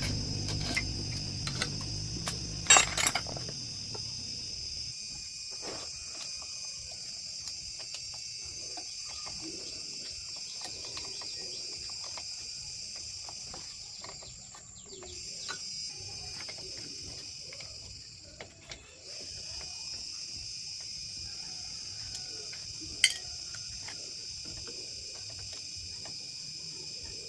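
Steady high-pitched chorus of insects, briefly fading twice midway. A few sharp clicks or knocks break through, the loudest about three seconds in and again near the end.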